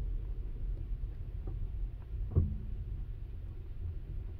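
Low, steady rumble of a car's engine and road noise heard from inside the cabin, with a brief soft knock about two and a half seconds in.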